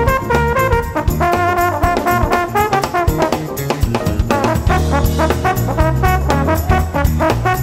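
Live jazz band playing: trombone and saxophone horn lines over a busy drum kit, electric bass and Fender Rhodes electric piano.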